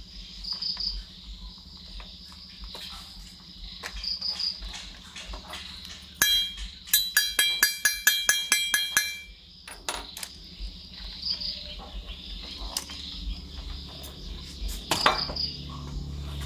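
Crickets chirping steadily in the background. From about six to nine seconds, a quick run of sharp metallic clinks and taps with a slight ring comes from the small metal parts of a toy excavator being handled.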